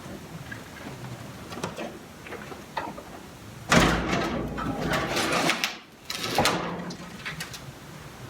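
Land Rover seat box scraping and clanking as it is dragged and lifted off the chassis. Small knocks come first, then a loud grating scrape about four seconds in and a second shorter one about two seconds later.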